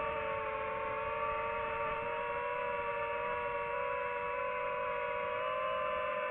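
FPV quadcopter's electric motors and propellers whining steadily at near-constant throttle. Several close tones hold nearly the same pitch, drifting only a little.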